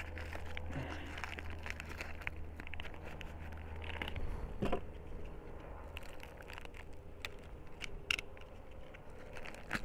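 Black plastic bag crinkling and crackling in irregular bursts as it is handled and turned in the hands.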